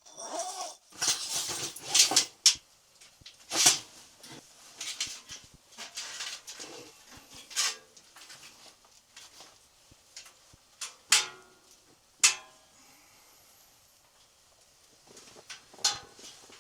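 A dog making noises close by, among irregular rustling bursts and a few sharp clicks.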